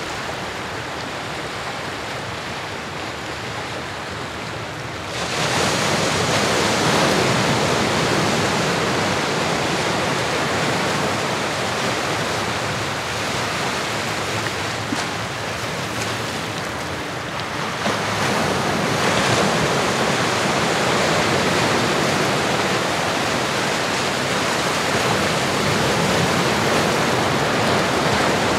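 Ocean surf: a steady rush of waves washing in, swelling louder about five seconds in and again about two-thirds of the way through.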